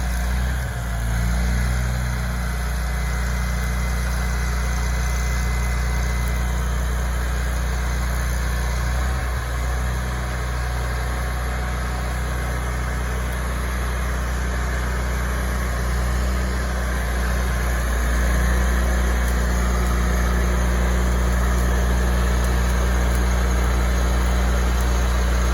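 The engine of the well-drilling equipment running steadily, a low even hum that gets slightly louder about 18 seconds in.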